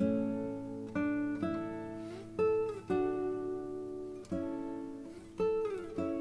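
Background music: an acoustic guitar strumming chords, each struck sharply and left to ring and fade, a new chord every half second to a second and a half.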